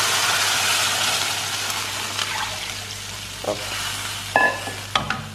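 Roasted moong dal and sago in hot ghee sizzling as water goes into the pan, the sizzle fading steadily. A few knocks of a spoon against the pan come in the second half.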